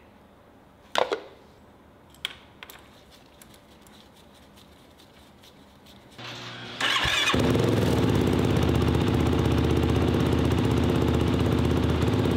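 Yamaha YFZ 450R's single-cylinder four-stroke engine briefly cranked by its starter and catching about seven seconds in, then idling steadily, started to circulate fresh oil before the level is rechecked. A few sharp clicks come before it.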